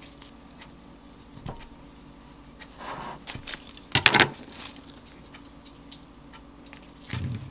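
Kitchen handling sounds as a sweet potato is peeled and an avocado is cut in half on a wooden cutting board: light clicks and rustles, a sharp clatter about four seconds in, and a dull knock near the end.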